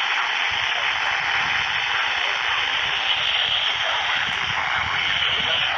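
Steady radio static hiss from a weather-radio receiver between alert broadcasts, with no voice.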